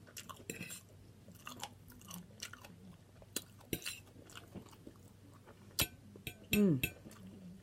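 A person chewing food close to the microphone, with scattered wet mouth clicks and smacks. Near the end comes a short, louder vocal sound that falls in pitch.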